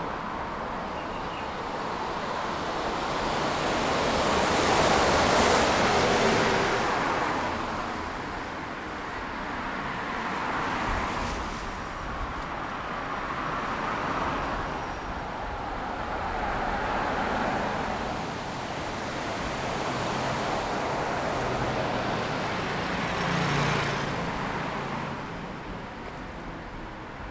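Cars passing one after another on a wet road, each a swell of tyre hiss that rises and fades away. The loudest pass comes about five seconds in, and several smaller ones follow.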